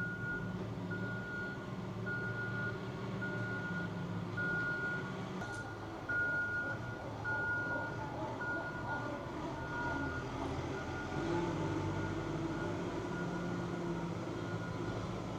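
A vehicle's reversing alarm beeping at an even pace, about once every three-quarters of a second, over a low engine rumble. The beeping stops about ten seconds in and the rumble carries on.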